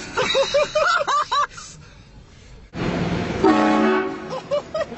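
Train horn blasting one long note of about a second, roughly three seconds in. Before and after it come short high excited voices.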